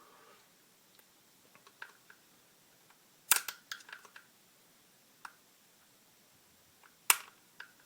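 Small, sharp metallic clicks and taps of pistol frame parts being worked apart by hand: a short cluster about three seconds in, a lone click a little later, and a louder click near the end followed by a smaller one.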